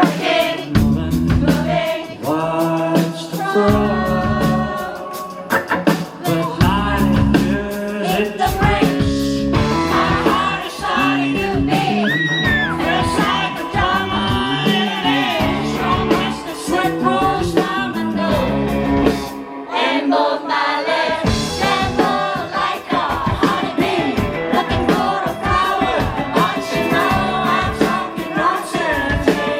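Rock band playing live with a singer over guitars, bass and drums. The bass and drums drop out for about a second about two-thirds of the way through, then come back in.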